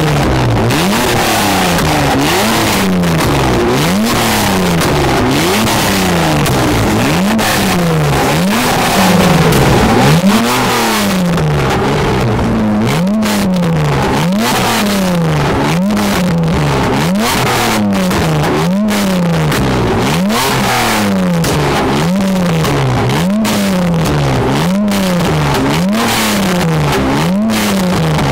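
Toyota MR2 (second generation) engine revved through its twin-tip exhaust, blipped over and over about once a second, each rev rising and falling in pitch. One rev about nine seconds in is louder than the rest.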